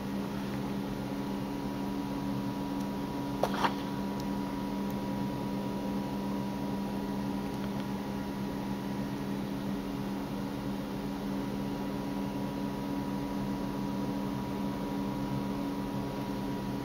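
A steady electrical or mechanical hum, with a thin high tone above it, and two short clicks about three and a half seconds in.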